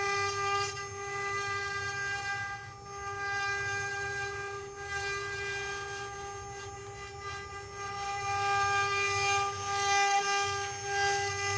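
Multi-head CNC wood carving machine running: its router spindles hold a steady, high whine with a rasping cutting noise over it that swells and fades, loudest near the end.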